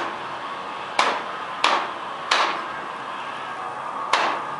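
Hammer blows: four sharp strikes at uneven intervals, each followed by a short ringing tail.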